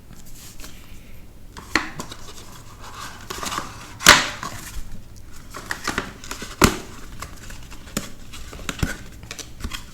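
Cardboard box parts and trading cards being handled: scattered scrapes, taps and rustles, with sharper knocks about two, four and six and a half seconds in.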